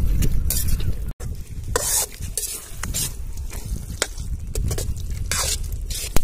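A metal ladle stirring and scraping through a thick goat intestine and blood fry in a large black kadai, with the food sizzling. The scrapes come irregularly, about one or two a second.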